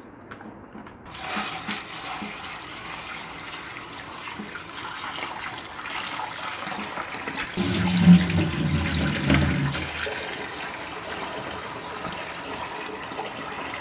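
Tap water running into an enamel pot of dry split chickpeas (chana dal), splashing onto the lentils as the pot fills. From about seven and a half to ten seconds in, the splashing grows louder and deeper.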